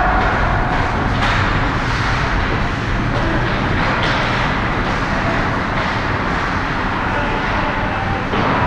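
Ice hockey game in an indoor rink: a steady hiss and low hum of the arena, with now and then skate blades scraping the ice.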